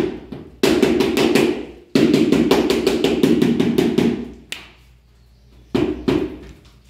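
Rubber mallet tapping a large ceramic floor tile to bed it into the mortar and level it, in two quick runs of taps, about seven a second, then two single taps near the end.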